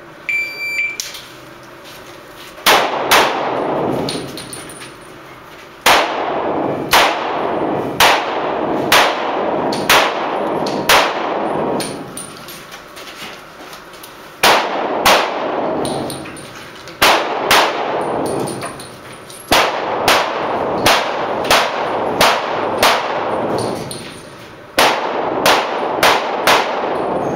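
Shot timer start beep, then a practical pistol shooting stage: about two dozen pistol shots, many in quick pairs, fired in strings with pauses of one to three seconds while the shooter moves between positions. Each shot echoes in the enclosed range hall.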